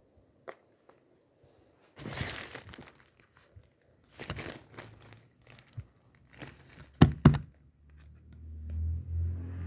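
Rustling, crinkling handling noises in bursts, then two loud knocks in quick succession, after which a low hum starts up and grows louder near the end.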